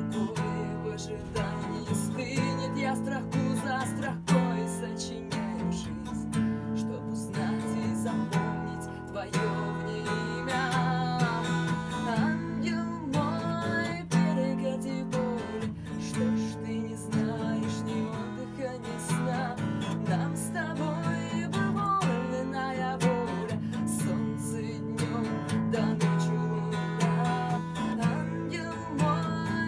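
A woman singing to her own strummed acoustic guitar, performed live.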